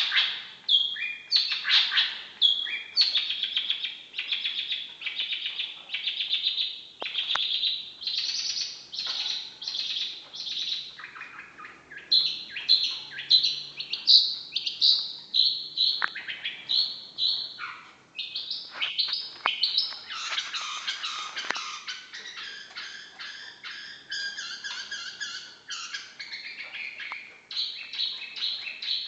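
Long-tailed shrike (cendet) singing a long, unbroken, varied song of rapid high-pitched chirps and phrases.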